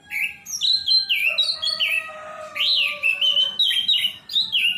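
Orange-headed thrush singing a loud, rich burst of varied whistled phrases, many notes sliding down in pitch, that starts abruptly and stops after about four and a half seconds.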